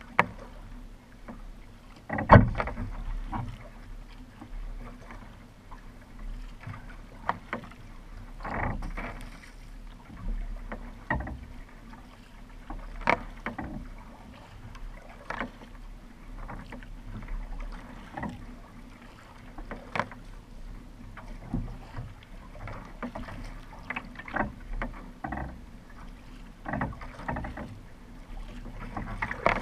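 Kayak paddle strokes dipping and splashing in the water, an irregular stroke every one to two seconds, heard from on the boat's deck along with water running past the hull. A few sharp knocks stand out, the loudest about two seconds in.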